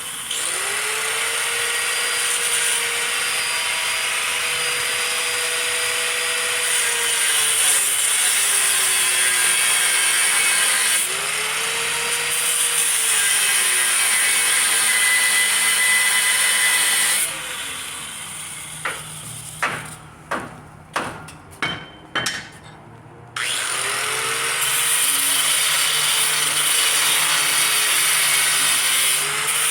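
Angle grinder with a cut-off wheel cutting through a steel van frame rail. Its whine dips in pitch as the wheel bites and comes back up as it eases off. About two-thirds through it stops for several seconds, with a handful of sharp knocks, then starts cutting again.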